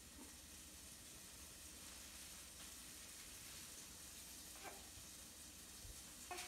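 Near silence: room tone with a steady faint hiss.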